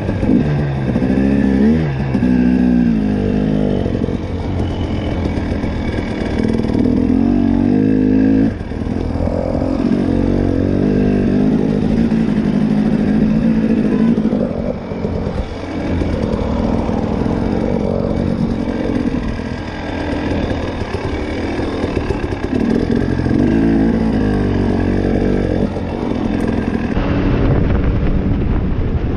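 KTM TPI two-stroke enduro motorcycle engine, heard from the rider's own bike, revving up and down repeatedly as it rides the trail, its pitch rising and falling with the throttle and gear changes.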